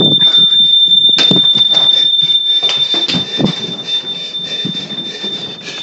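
Smoke alarm sounding a steady high-pitched tone from another room, the test of how far through the house it can be heard. Over it, loud rustling and clatter of the phone being carried, with sharp knocks about a second in and again about three and a half seconds in.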